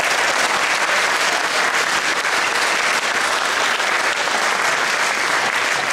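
Live theatre audience applauding steadily.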